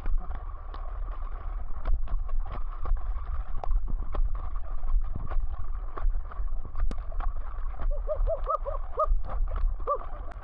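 Steady low rumble, like wind buffeting the microphone, with many scattered sharp clicks and taps throughout and a few short chirp-like sounds near the end.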